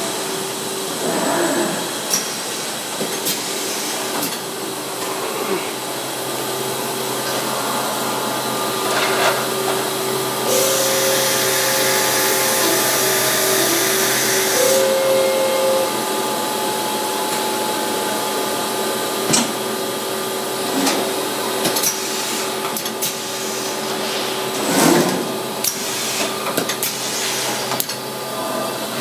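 Deckel Maho DMC 165V vertical machining center running, a steady mechanical whine with several held tones. Midway a hiss starts, lasting about four seconds, with short higher tones at its start and end, and scattered clicks and knocks through the rest.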